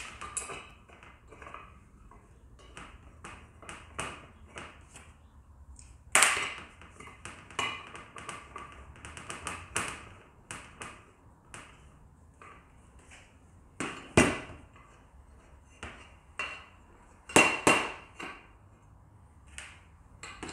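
Steel bolts, washers, nuts and an Allen key clinking and tapping against the metal bench top and the wishbone as ball joints are bolted onto a suspension wishbone. Many light clinks with a few louder knocks scattered through, and nothing steady underneath.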